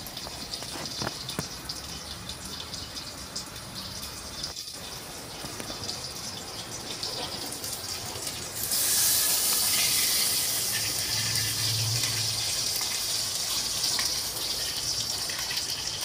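Water running and splashing, as from a tap, with a few small ticks. About nine seconds in it gets much louder, a strong gush that keeps going.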